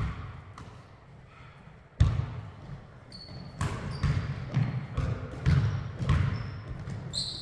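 A basketball bouncing on a hardwood gym floor: two single bounces about two seconds apart, then steady dribbling about twice a second. Short high sneaker squeaks on the floor come in between, the loudest near the end.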